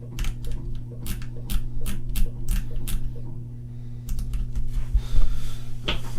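A quick string of sharp clicks and taps, about two or three a second, some with a dull thump, over a steady low hum.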